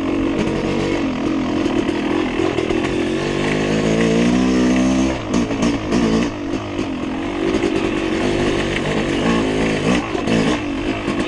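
Dirt bike engine running under changing throttle. Its pitch climbs steadily from about three seconds in, drops suddenly a couple of seconds later, then rises and falls again.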